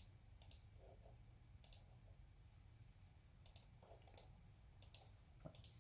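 A computer mouse's button clicking faintly, about eight clicks spread unevenly, some in quick pairs, over a quiet steady hum.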